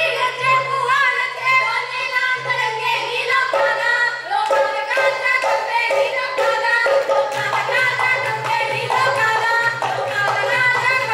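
Women singing a Punjabi folk song in the style of Gidha boliyan, with rhythmic hand clapping keeping the beat and a steady low drone underneath.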